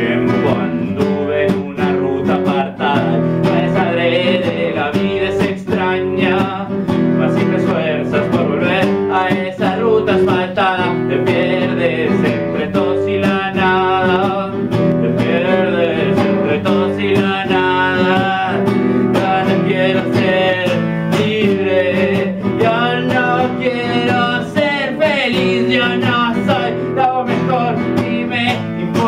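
Music: a classical guitar strummed steadily, with a wavering melody line above it.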